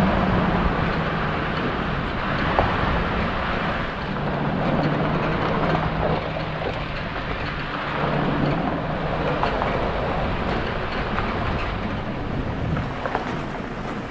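Vehicle driving slowly along a campground road, heard from inside the cabin: a steady rumble of engine and tyre noise, with a low hum that swells and fades and scattered small clicks and knocks.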